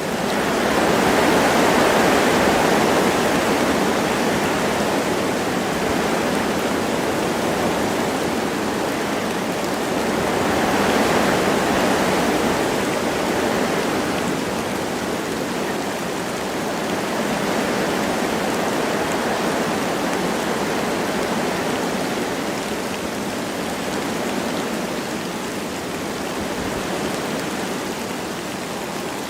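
Wind blowing through forest trees with light rain, a steady rushing that swells in gusts, loudest about a second in and again around eleven seconds in.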